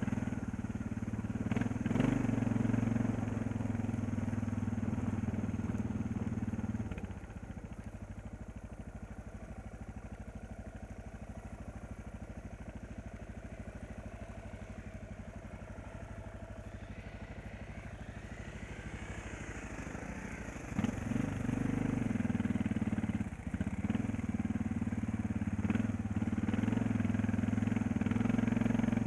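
Motorcycle engine running as the bike rides along a dirt track. It pulls steadily for about the first seven seconds, then drops to a lower, quieter note for about fourteen seconds, and rises again about two-thirds of the way through.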